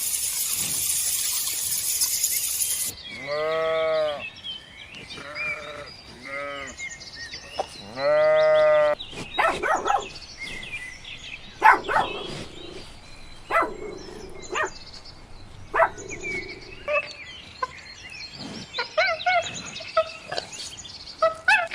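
A steady hiss cuts off about three seconds in. Then a farm animal bleats several times in quavering calls, the longest and loudest about eight seconds in, followed by scattered clicks and short calls.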